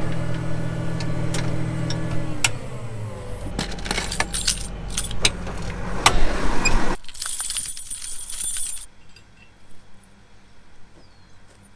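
Case IH 7240 tractor's six-cylinder diesel engine heard from inside the cab, slowing with a falling pitch over the first few seconds, followed by clicks and rattles as the cab door is opened. After a sudden drop in level about seven seconds in, there are only faint metallic clicks outdoors, like a padlock and keys being worked at the gate.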